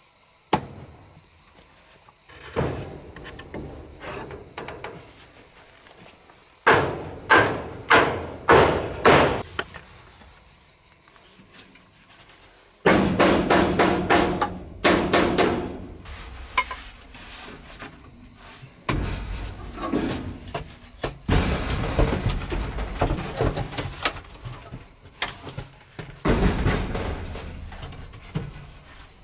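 Hammering on a wooden door frame, in bursts of sharp knocks: four hard blows about half a second apart, then quicker runs of lighter strikes.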